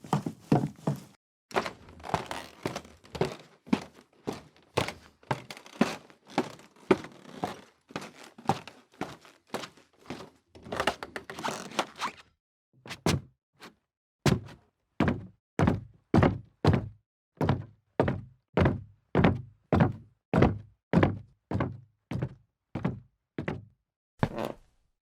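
Footsteps on a wooden floor: a run of brisk steps about two a second, then after a brief break a second series of heavier, thudding steps at a steady walking pace that stop shortly before the end.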